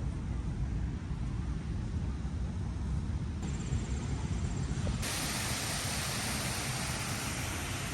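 Wind rumbling on the microphone, then from about five seconds in an abrupt change to a steady, brighter rushing hiss.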